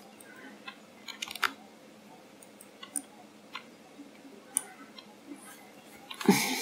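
Computer keyboard and mouse clicks: a quick run of clicks about a second in, then single clicks every second or so. Near the end, a louder short rush of noise.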